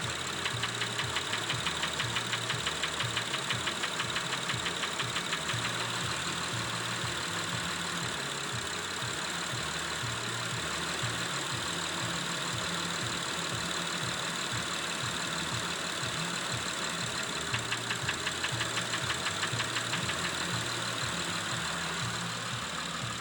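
Engine idling with a rhythmic knocking, which the owner puts down to a knocking cylinder. The knock stands out most for several seconds near the start and again for a few seconds toward the end.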